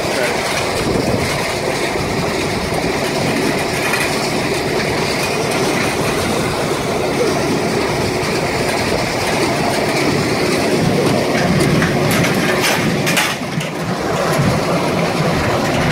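A Welger small square baler working through hay, towing a steel Ritchie bale accumulator. Together they make a steady, loud mechanical running and rattling, with a few sharp clicks about three-quarters of the way through.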